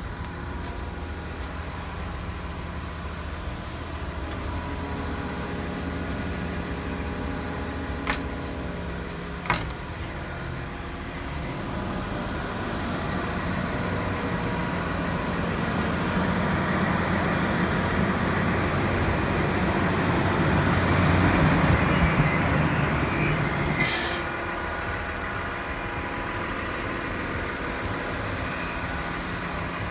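CAT 924 wheel loader's diesel engine idling steadily. It swells louder and rougher for several seconds past the middle, then drops back suddenly about two-thirds of the way through; two sharp clicks come about a third of the way in.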